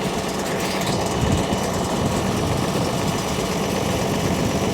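International 1486 tractor's diesel engine idling steadily.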